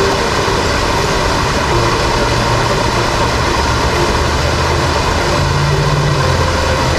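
Steady rushing of a small waterfall pouring into a stream's plunge pool.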